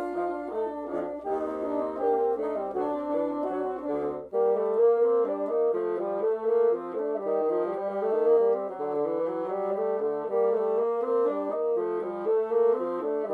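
Several multi-tracked bassoons playing together in harmony, note by note. About four seconds in the music breaks off briefly, and a new variation starts with fewer parts: two bassoons, without the lowest bass line.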